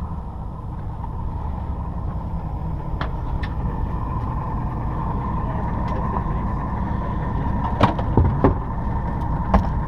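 Steady low rumble aboard a small fishing boat, with a faint steady whine above it. A few light clicks come about three seconds in, and a cluster of knocks and clatters follows near the end.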